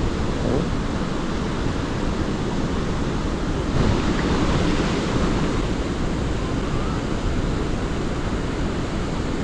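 Strong wind buffeting the microphone: a steady rumbling noise that grows a little louder about four seconds in.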